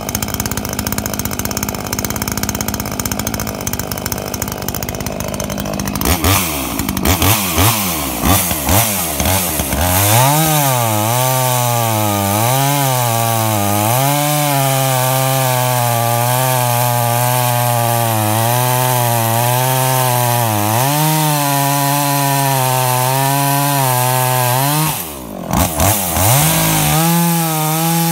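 Makita EA5600F two-stroke chainsaw with a new Oregon SpeedCut chain, running steadily at first, then revved in several short blips. From about ten seconds in it runs at full throttle cutting through a large log, its pitch dipping and recovering as it loads. Near the end it eases off for a moment, then revs back up and keeps cutting.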